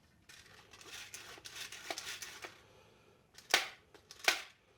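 Hands working a chainsaw's recoil starter spool and pull cord: scratchy rustling, then two sharp clacks about three and a half and four and a quarter seconds in.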